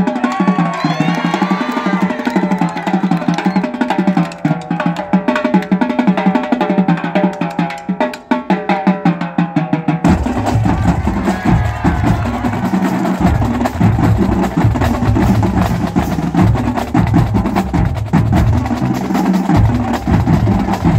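Marching drumline of snare drums, tenor drums and bass drums playing a fast, dense cadence. From about halfway on, deep bass-drum notes sound strongly under the snares.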